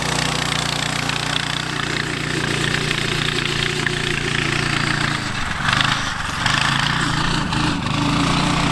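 Small single-cylinder engine of an off-road go-kart (420cc) running, its steady note breaking up and shifting about two-thirds of the way through before settling again.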